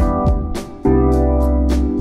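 Instrumental background music with sustained chords over a steady beat; the chord changes a little under a second in.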